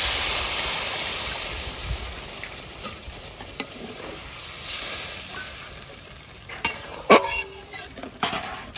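Water poured into a hot metal wok of fried potatoes in spice paste hisses and sizzles loudly, the sizzle dying away over several seconds. A metal spatula stirs the gravy, with a few sharp knocks and scrapes against the wok near the end.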